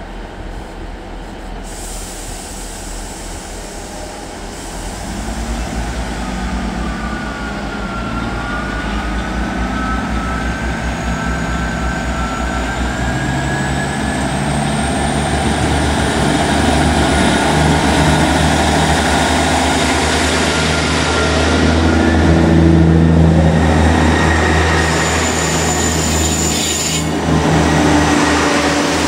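Class 158 diesel multiple unit pulling away and accelerating past close by, its underfloor diesel engines working harder and growing louder. A thin high whine climbs in pitch as it gathers speed.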